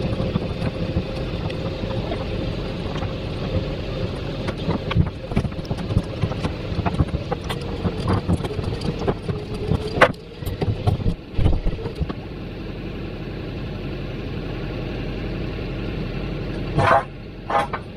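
A winch running as it drags a 20-foot steel shipping container, a steady motor rumble and whine with frequent knocks and clanks. The whine fades out about two-thirds of the way through, leaving a quieter steady rumble, with a few short higher-pitched sounds near the end.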